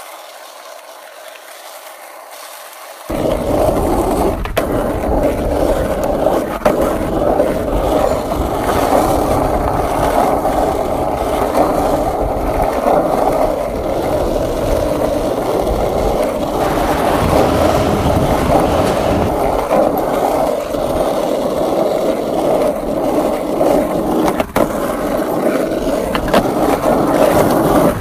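Skateboard wheels rolling over rough asphalt: a steady grinding roll that starts suddenly about three seconds in, with a few sharp clicks. Before it there is only a quieter, thinner noise.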